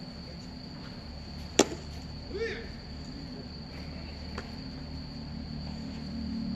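A pitched baseball ends in one sharp, loud smack, followed about a second later by a short shout. A steady high insect trill, typical of crickets, runs underneath.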